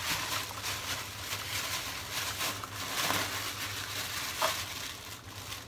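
Plastic bags rustling and crinkling in irregular handling, with a steady low hum underneath.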